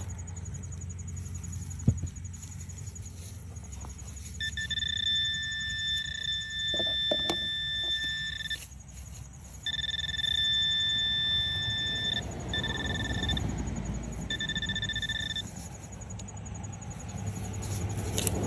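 Metal detector sounding a loud, steady high-pitched target tone over buried metal, which the finder guesses is an old car part. The tone starts a few seconds in, stops and restarts, and ends in a few short beeps, over a steady low rumble and a couple of knocks.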